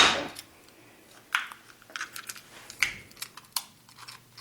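Cooked lobster shell being cracked and picked apart by hand: a few short, sharp clicks and snaps of shell, scattered about a second apart.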